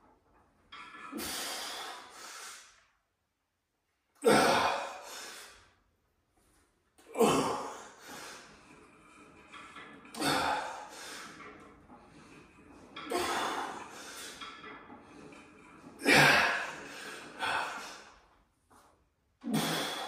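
A weightlifter breathing out hard once with each rep of a heavy incline dumbbell press, about every three seconds. Seven forceful breaths in all, each sharp at the start and trailing off.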